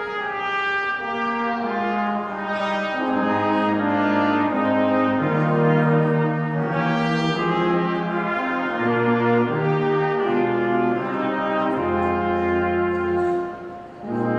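Brass ensemble playing a slow piece in several parts, moving between held chords, with a short pause near the end before the next phrase.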